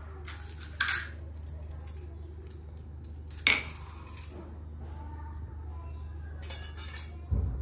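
Loose steel bicycle spokes clinking and rattling against each other and a Novatec rear hub as they are handled and laid out, with three sharp clinks: about a second in, halfway, and near the end, the last with a low thump.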